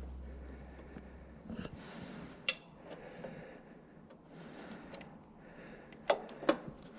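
Scattered sharp clicks and knocks of metal parts being handled, the loudest about two and a half seconds in and a close pair near the end.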